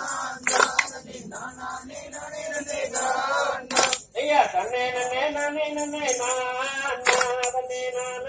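A kummi folk song being sung in long, bending held notes, over a quick, steady high-pitched rhythm, with a few sharp claps cutting through.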